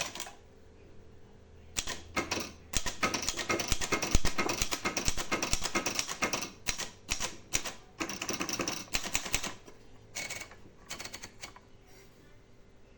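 Royal Royalite 120 portable manual typewriter being typed on: a rapid run of key strikes clacking against the platen, starting about two seconds in, with brief pauses, then thinning out and stopping near the end.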